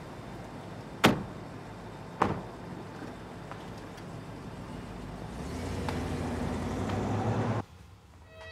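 Two car doors of an Infiniti FX SUV shutting about a second apart. A few seconds later the engine rises as the SUV pulls away, and the sound cuts off suddenly near the end.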